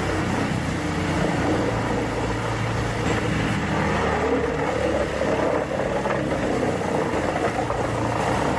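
Engine-driven firewood processor running: a steady engine hum under continuous mechanical noise from the machine working.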